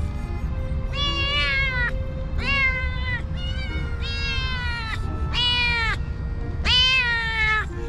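Hungry kittens meowing for food: about six drawn-out meows in a row, each falling in pitch at its end, the loudest near the end.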